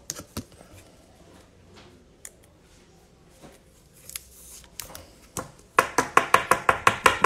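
Trading cards being handled: a few light clicks and rustles, then near the end about a second and a half of rapid sharp clicks, roughly eight a second, as cards are flicked through one by one.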